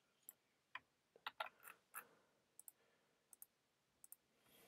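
Faint, scattered clicks of a computer keyboard and mouse, about a dozen irregular taps with quiet between them.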